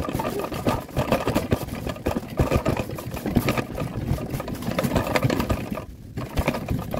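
Fabric-sided pull wagon rolling along, heard from inside the wagon bed: its wheels and frame rumble and rattle with irregular knocks as it jolts over the ground. The rattle drops out briefly about six seconds in.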